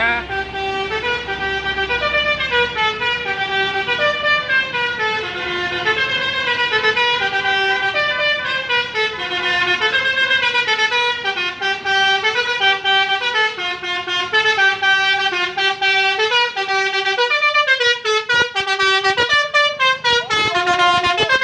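A bus's multi-tone telolet horn plays a long tune of short held notes stepping up and down in pitch. Near the end the notes are chopped up by a rapid crackle.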